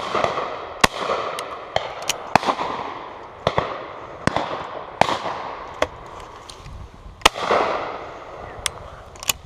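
Shotgun shots at a driven pheasant shoot: about a dozen reports at irregular spacing, some close and loud, others fainter and farther off. Each trails off in a rolling echo.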